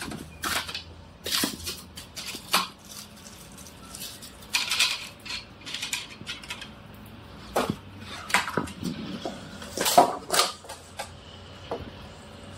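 Plastic packaging film rustling and irregular clicks and knocks of a plastic automatic chicken coop door being handled, with a sharper knock about ten seconds in.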